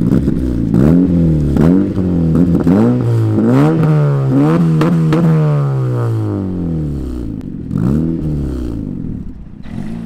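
Honda Civic coupe's 1.8-litre four-cylinder engine, exhaust with a muffler delete, revved in a quick series of blips, then one longer rev that falls back slowly, then two more short blips near the end.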